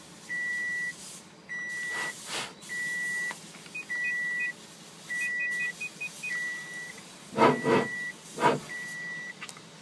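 A car's electronic warning beep repeating steadily, one half-second beep of the same pitch about every 1.2 seconds. A few louder bumps or rustles break in about three-quarters of the way through.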